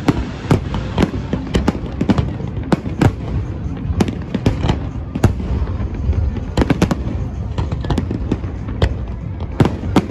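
Aerial fireworks display: shells launching and bursting in quick, irregular succession, several sharp bangs and crackles a second over a continuous low rumble.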